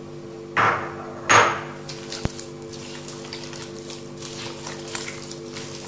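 Hands squeezing and mixing softened butter, sugar and raw eggs in a glass bowl, a run of small irregular wet squishing sounds. Two louder knocks come in the first second and a half, with a sharp click just after.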